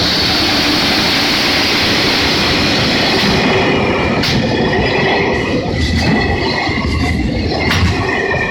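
Freight train passing close by: a loud, steady rush and rumble of wagons on the rails, with a few sharp clacks of wheels over rail joints. From about halfway, steady high-pitched tones ring over the rumble.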